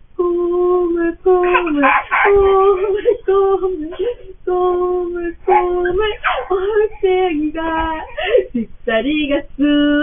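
A woman singing a children's song to a toddler, in held notes that step up and down.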